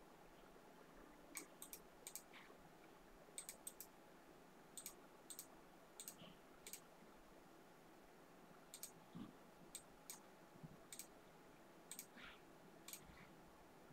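Faint, irregular clicking of a computer mouse and keyboard, many of the clicks coming in quick pairs.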